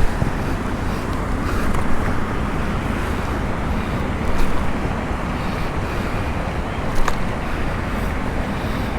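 Wind buffeting the microphone: a steady rumbling rush, with a couple of brief clicks in the second half.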